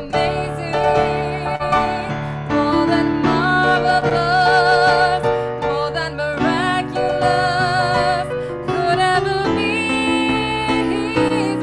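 A song: a singing voice with vibrato over piano accompaniment.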